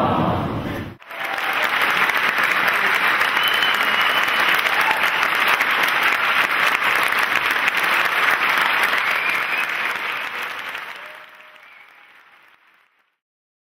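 Audience applauding after a stage performance: dense clapping that starts about a second in, holds steady, then fades out near the end.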